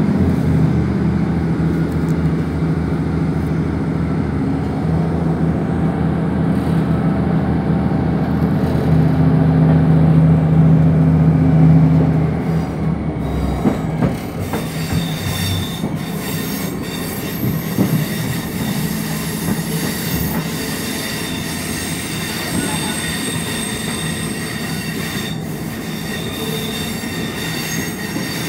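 Inside a Class 150 diesel multiple unit pulling away: the underfloor diesel engine runs hard with a deep, steady note that climbs slightly, then drops away about halfway through. Wheel-and-rail running noise with thin high-pitched squealing tones follows as the train rolls on.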